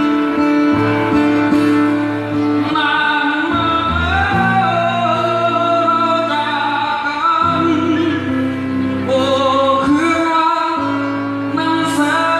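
A man singing to his own acoustic guitar through a stage PA. Strummed chords open the passage, and his voice comes in about three seconds in, singing in phrases.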